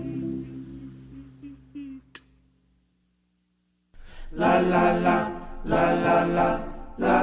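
Music: the last held notes of one song fade out into about a second of silence, then the next song starts about four seconds in with loud held chords, each lasting about a second.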